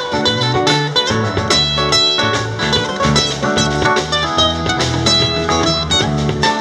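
A live band playing with electric and acoustic guitars, bass, drums and keyboard, driven by a steady drum beat and a walking bass line.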